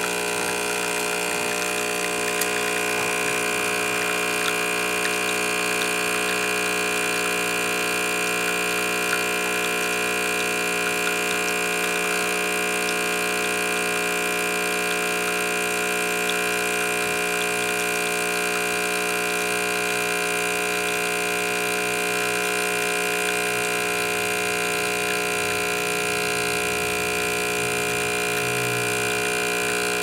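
The pump of a 1990 Caffeitaliano (Technosystems) pod espresso machine running with a steady hum, pushing hot water through an espresso pod while brewing a shot.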